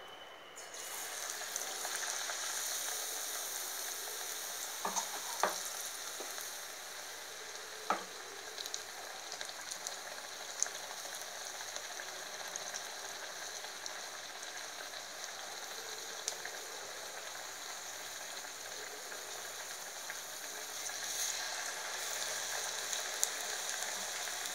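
Batter-coated raw plantain slices deep-frying in hot oil in an iron kadai: a steady sizzle that starts about a second in, with a few light clicks around five to eight seconds. The sizzle grows louder again near the end as a second slice goes into the oil.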